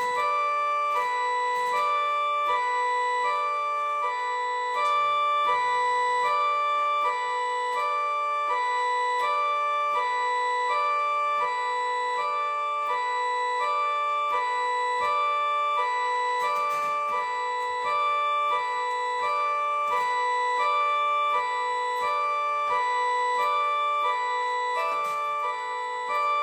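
3D-printed miniature 3T22 air raid siren sounding its high-low signal: a steady alternation between two tones, one high and one low, repeated evenly with no break.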